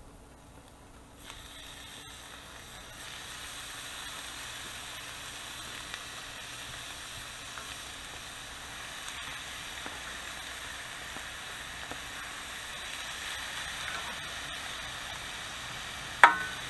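Diced bacon sizzling in a hot GSW No. 9 cast iron frying pan. The sizzle starts about a second in as the pieces go in and slowly grows louder. One sharp knock sounds near the end.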